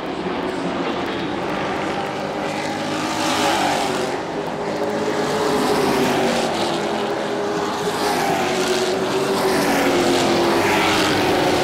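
Pro Truck race trucks' engines running at racing speed around a short oval, swelling and falling in pitch as trucks pass, about three times.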